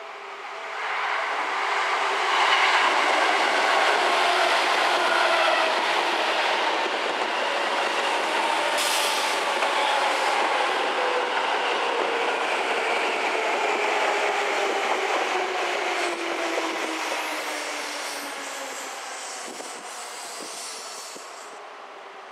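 Seibu Railway 101-series and 301-series yellow electric train passing close by as it slows for its stop, with a whine that falls steadily in pitch under the noise of the wheels on the rails. A brief hiss comes near the middle, and the sound fades as the train moves away toward the platform.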